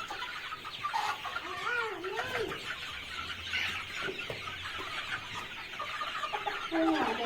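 A flock of male Sonali chickens clucking and chattering, with a louder wavering call about two seconds in and another near the end.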